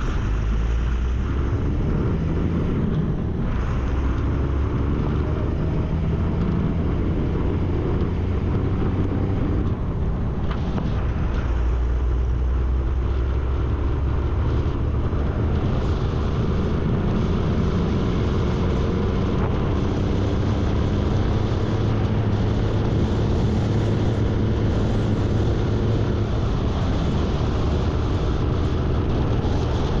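MAN LE280B 4x4 truck's diesel engine running as the truck drives along, with road and wind noise. Its pitch drops for a few seconds near the middle, then rises again.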